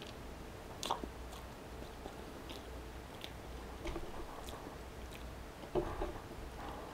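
A person chewing a bite of flaky spinach-and-ricotta pastry: faint soft crunching and wet mouth sounds, with a sharper crackle about a second in.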